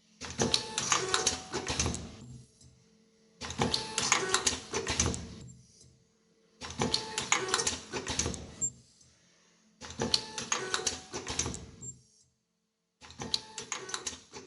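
Automatic nylon zipper film welding machine running through its cycles: a burst of rapid mechanical clattering and clicking about every three and a third seconds, each dying away before the next, five cycles in all.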